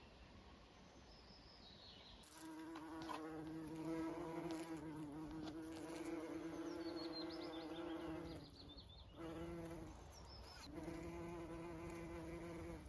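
A flying insect buzzing close to the microphone, a steady low buzz that starts about two seconds in, breaks off twice and comes back. A bird chirps briefly in the background.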